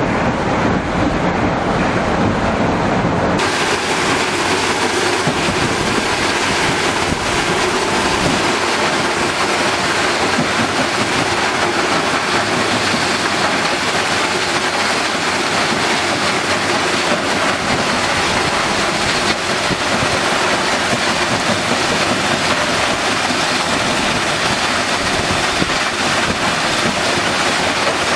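Steady rushing of wash water at a stone crushing and screening plant, with the plant's machinery running underneath. About three seconds in it changes from a lower rumbling noise to a brighter, hissing rush that stays steady.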